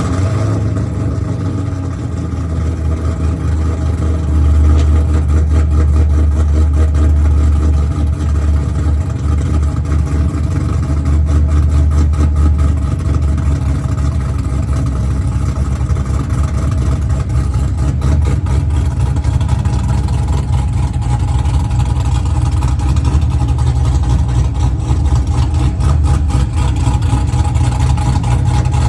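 A modified car's V8 engine idling loudly through its exhaust, steady and deep. It cuts in suddenly at the start.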